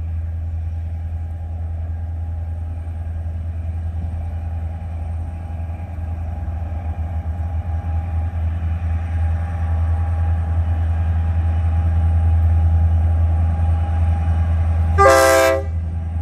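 Diesel freight locomotives approaching with a steady low engine rumble that slowly grows louder, then a single short train horn blast near the end.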